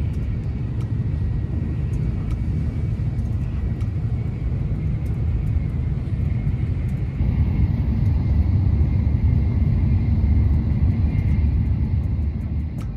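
Steady low rumble of a JR Shinkansen bullet train running at speed, heard inside the passenger car. It grows a little louder about halfway through.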